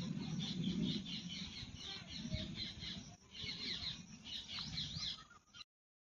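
Birds chirping in quick runs of short twittering calls over a low rumble, with the sound cutting out abruptly near the end.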